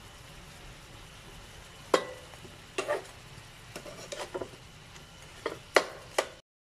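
A wooden spatula stirs shrimp in a frying pan, knocking and scraping against the pan about eight times from about two seconds in, over a faint sizzle of the shrimp frying in oil.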